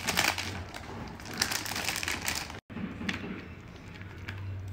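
Foil-lined chip bag crinkling and crackling as it is handled, in several bursts. About two and a half seconds in, the sound cuts out for an instant, and quieter handling follows over a low hum.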